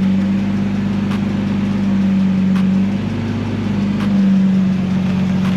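Nissan Skyline R32 GT-R's twin-turbo RB26DETT straight-six idling steadily just after being started.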